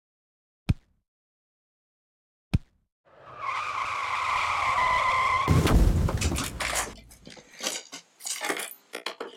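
Two hard claw-hammer blows on a wooden cabinet. About three seconds in, car tyres start squealing for around two seconds, then a heavy crash as the car smashes the cabinet, followed by wood pieces cracking and clattering.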